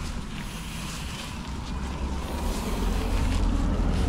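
Wind buffeting the microphone: an uneven low rumble that grows louder about halfway through.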